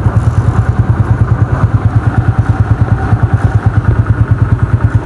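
Small motorcycle engine idling with a rapid, even pulse.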